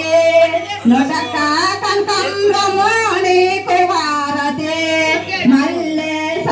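Voices singing in long, wavering held notes.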